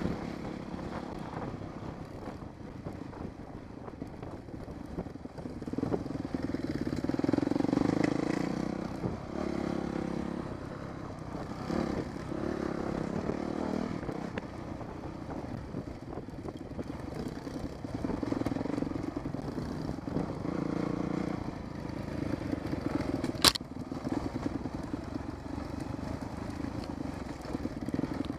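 Dirt bike engine running while riding, its note swelling and easing several times with the throttle, with one sharp knock a few seconds before the end.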